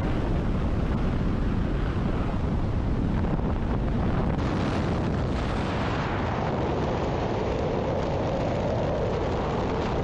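Heavy wind noise on the microphone from the rush of air in skydiving freefall, a steady, dense rumble with no break.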